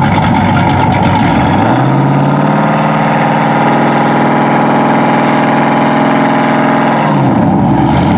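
Jeep Grand Cherokee SRT8's 426 stroker V8 at the starting line, revved up about a second in and held at a steady raised rpm for about five seconds, then let back down to idle near the end. This is the engine being held on the line ready to launch.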